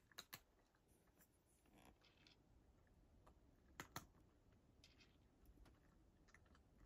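Cat eating from a dish: faint crunching clicks as it chews, with two sharper pairs of clicks, one near the start and one a little past halfway.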